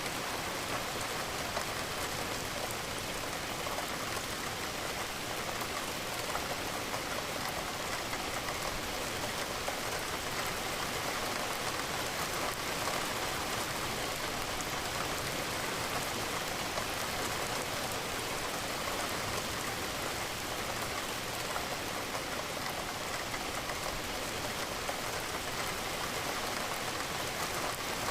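Steady rain with many small drops hitting a window, running evenly without a break.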